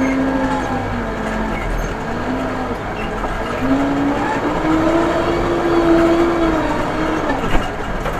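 Case 580M backhoe loader's diesel engine running under working load, its pitch rising about three and a half seconds in, holding higher, then dropping back near the end.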